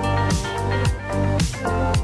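Background music with a steady beat of about two drum hits a second.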